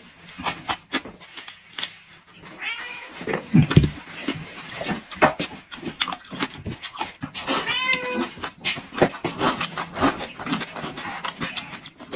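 A domestic cat meowing, with calls clearest about three seconds in and again near eight seconds. Close-up chewing and lip-smacking clicks run underneath.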